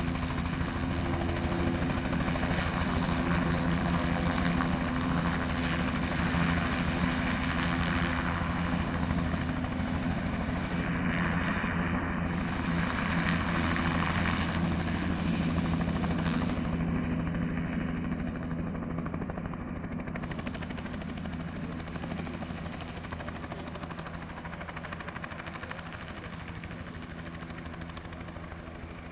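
Bell 206L-4 LongRanger helicopter with its Allison 250-C30P turboshaft, hovering low with a steady rotor and engine sound, then climbing away so that the sound fades over the last ten seconds or so.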